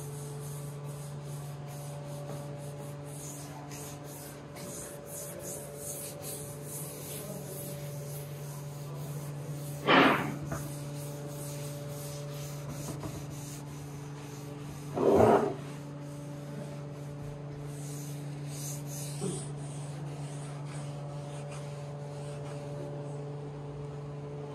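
A gloved hand rubbing finish into a pine tabletop: quick, dry rubbing strokes across the wood grain, over a steady low hum. Near the middle come two much louder half-second sounds about five seconds apart.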